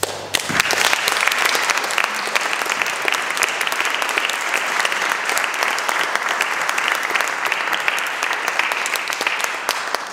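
Audience applauding, a dense spread of many hands clapping that stops near the end.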